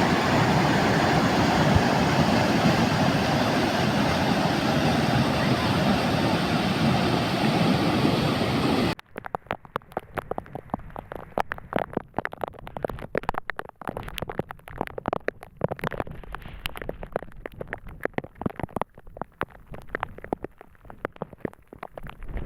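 Loud steady rush of heavy rain and running water, which cuts off abruptly about nine seconds in. It gives way to quieter, scattered pattering of raindrops on a surface.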